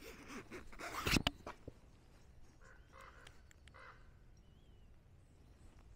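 A burst of rustling with a few sharp knocks in the first second and a half, loudest about a second in. Then a bird calls a few times about three to four seconds in, with a thin chirp near the end.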